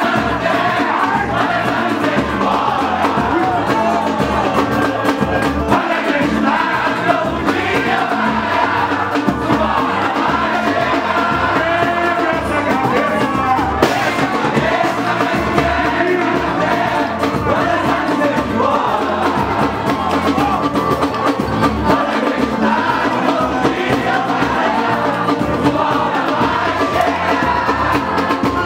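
Pagode music with a group of voices singing along together.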